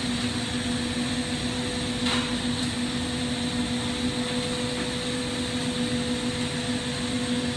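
Steady hiss and hum of a glassblowing workshop: a lampworking torch burning alongside a ventilation fan, with an even pitch and no change.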